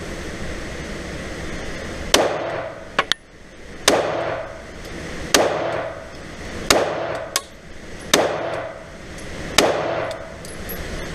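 Six shots from a Glock 43 9mm pistol fired at a steady pace, about one every second and a half, each with a short echo off the walls of an indoor range. Fainter sharp clicks come between some of the shots.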